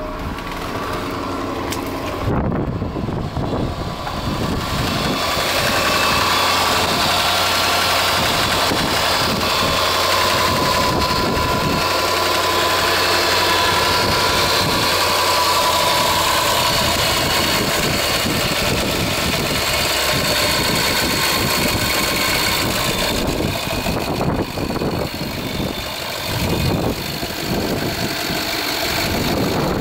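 A Land Rover 5.0-litre V8 starting about two seconds in, then idling steadily, heard from the open engine bay.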